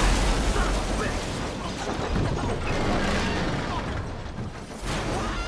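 Explosion striking a military vehicle: a sudden loud boom, then a dense rush of noise with a deep rumble that eases off near the end.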